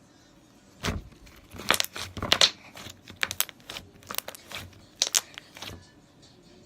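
Slime being squished and pulled by hand, giving a run of irregular wet crackles and pops.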